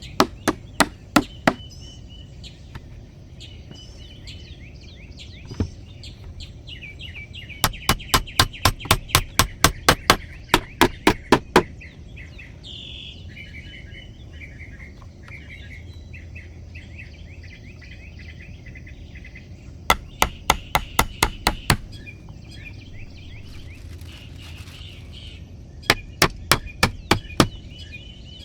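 A tool striking wood in quick runs of blows, several a second, in four bursts with pauses between. Birds sing through the pauses.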